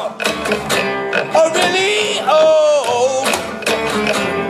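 Live acoustic folk band playing: strummed acoustic guitar and plucked upright double bass, with a woman's voice singing held, bending notes about a second and a half in and again around two and a half seconds in.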